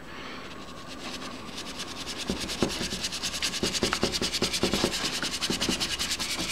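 Round brush scrubbing dry pigment powder into paper in rapid, even back-and-forth strokes, a scratchy hiss that grows louder about a second in.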